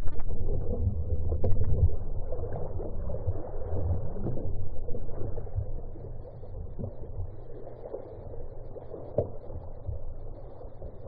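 Wind rumbling on the microphone, heaviest in the first half and easing after about six seconds, over a steady wash of wind and small waves at the shore, with a few sharp knocks.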